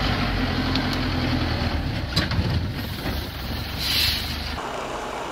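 Engine of a loaded six-wheeled log truck running steadily as it creeps over rough forest ground, with a couple of sharp knocks about two seconds in and a brief hiss near four seconds. The engine sound cuts off shortly before the end.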